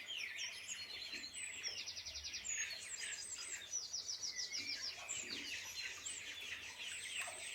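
A group of chicks peeping: a dense, continuous run of quick falling chirps, with fast high trills twice mixed in.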